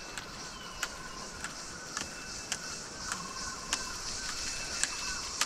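Insects chirring steadily in the background, a repeating high chirp pattern, with sharp regular ticks about twice a second.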